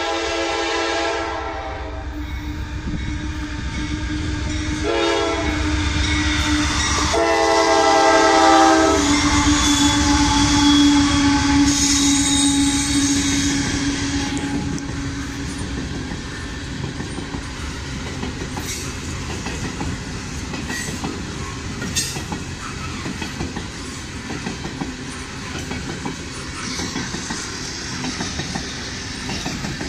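CSX freight train's locomotive horn blowing for the grade crossing: a long blast at the start, a short one about five seconds in, and a longer one from about seven to nine seconds. The train then rolls past with a steady rumble and clatter of hopper-car wheels over the rail joints, with a few sharp clanks.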